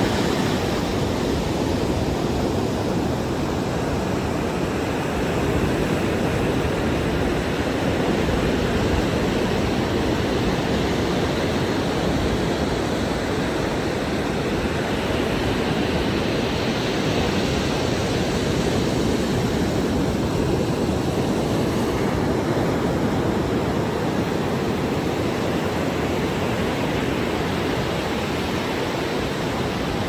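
Ocean surf breaking on a sandy beach, a steady rushing noise with no breaks.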